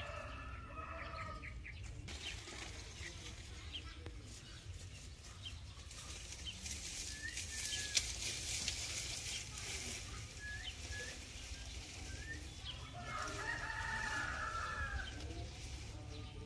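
A rooster crows in the background twice, once at the start and again about 13 seconds in, each crow lasting about two seconds. Between the crows there are short high chirps and a hiss.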